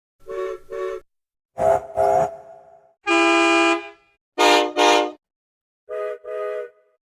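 A string of different vehicle horns sounded one after another, each a separate sound effect: four double toots, the second with a short ringing tail, and in the middle a single steady blast of about a second.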